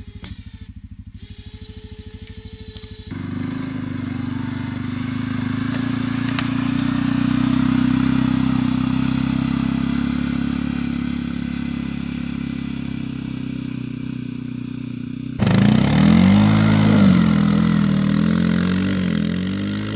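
CF Moto Gladiator X450 quad bike's single-cylinder engine: idling for about three seconds, then running steadily while hitched to a loaded wood trailer, then revving up and down with a rising and falling pitch as the quad accelerates across a field near the end.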